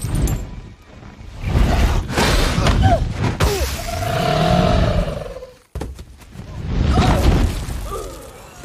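A dragon roaring in a fantasy-film sound mix: a sharp crash at the start, then two long loud surges of roaring and rushing noise with wavering cries in them, broken by a sudden cut about five and a half seconds in.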